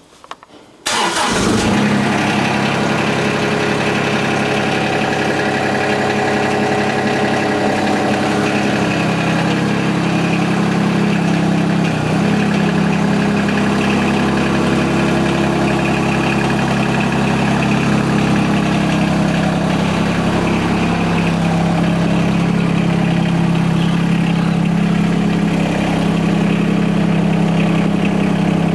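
John Deere 2210 compact tractor's diesel engine starting from cold: it catches about a second in and then runs steadily.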